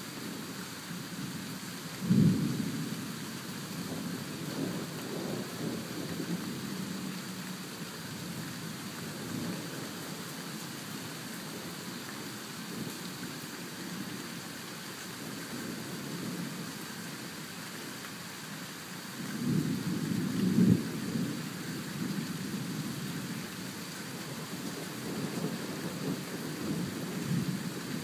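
Thunder rumbling over steady rain: a sudden clap about two seconds in, a longer, louder rumble around twenty seconds in, and more rolling rumble near the end.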